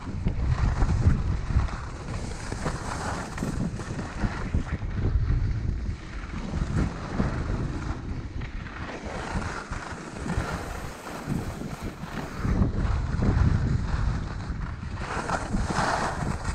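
Wind buffeting a GoPro Hero 6 microphone during a downhill ski run, with a low rumble throughout. The hiss and scrape of skis running over packed snow swells and fades every few seconds.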